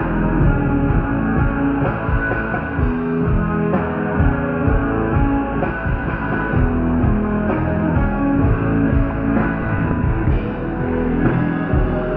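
Live rock band playing loudly, with distorted electric guitars sustaining chords over a steady drum-kit beat.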